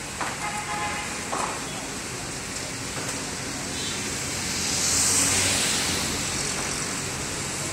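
Roadside traffic noise, with a vehicle passing by that swells and fades about five seconds in.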